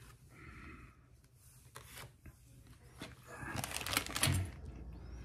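Handling noise: rustling and light clicks as small objects are picked up and moved, busiest about three and a half seconds in.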